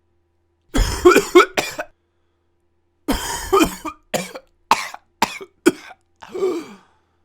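A person coughing: a quick burst of about three coughs about a second in, then a longer cough, a run of four short, sharp coughs, and one more drawn-out cough near the end.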